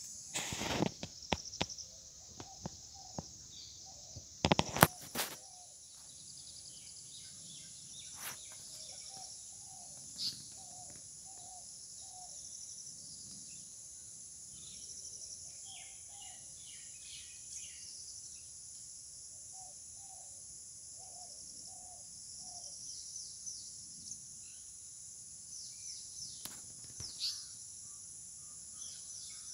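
Rural ambience of a steady high insect drone with birds calling in short repeated notes. A few sharp knocks sound in the first five seconds.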